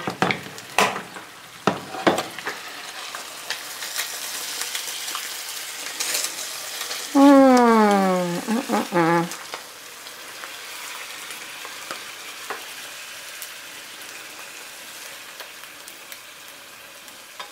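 Eggs frying in butter in a nonstick skillet, a steady sizzle, with clicks and scrapes of a spatula against the pan in the first two seconds. A loud drawn-out tone falling in pitch cuts in about seven seconds in and lasts about two seconds.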